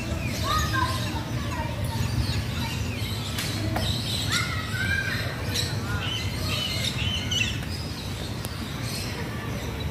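Small birds chirping: many short, scattered calls over a steady low rumble.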